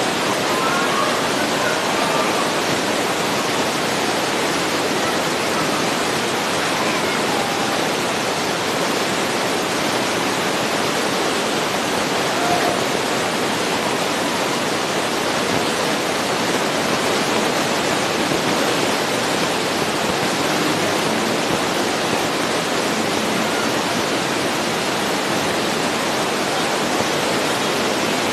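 A steady, even hiss of noise that covers the sound track, with no clear voices or whistles in it.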